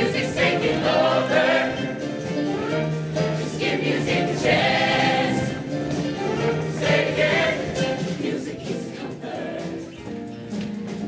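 Show choir singing with band accompaniment: many voices sustaining sung phrases over held low instrumental notes.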